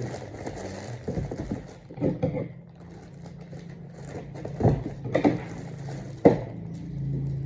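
Hands handling and opening a plastic-wrapped parcel: a handful of sharp crinkles and taps over a steady low hum.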